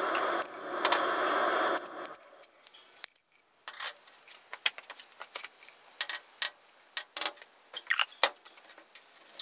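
A glass jar of loose steel bearing balls in spray cleaner being shaken, a dense rattle and slosh for about the first two seconds. Then scattered sharp clicks as the balls are tipped out onto a rag, clinking against the glass and each other.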